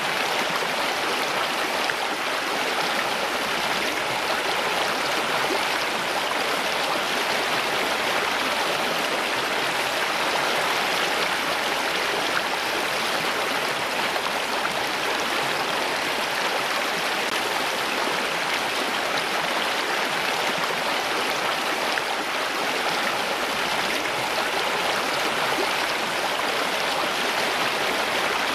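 Flowing water rushing steadily and evenly, a continuous stream-like sound with no break or change.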